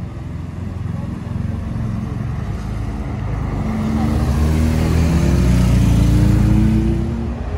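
Porsche 911 GT3 RS (992) naturally aspirated flat-six driving past close by and pulling away, its engine note rising steadily from about four seconds in. A motorcycle passes close behind it.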